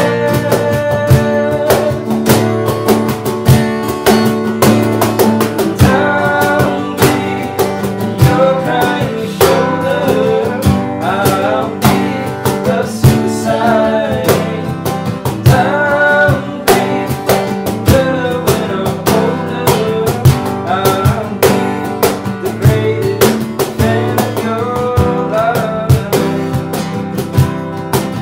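Acoustic guitar strumming chords with a cajón slapped in a steady beat under it. From about six seconds in, a voice sings a melody over the two.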